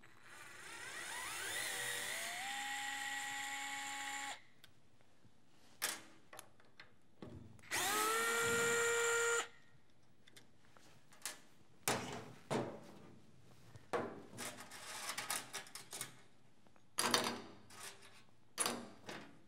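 Cordless power screwdriver backing screws out of a circuit breaker's metal case. It runs twice, each time spinning up with a rising whine that then holds steady: about four seconds the first time, under two seconds the second. Scattered clicks and clinks of screws and small metal parts being handled follow.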